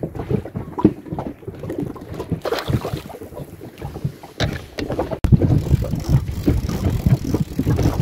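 Wind buffeting the microphone in a low, uneven rumble, with a few light knocks and clicks. About five seconds in the sound breaks off for an instant and comes back louder.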